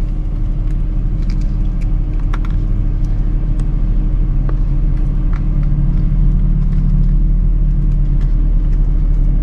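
Ram ProMaster van's engine idling, a steady low hum heard inside the van, with a few faint small clicks over it.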